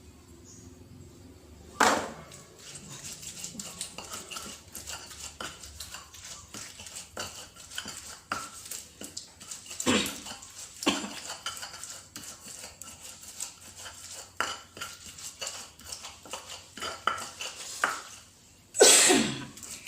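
Stone pestle working spices (shallots, garlic, candlenut) against a stone mortar: a fast run of small scraping knocks, with a few harder knocks about 2, 10 and 11 seconds in and a loud clatter near the end.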